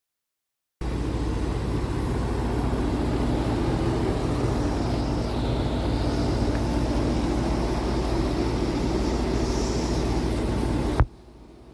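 Outdoor heat pump units running: a steady hum of compressor and condenser fan with a rushing noise over it. It cuts off abruptly near the end, leaving a much quieter background.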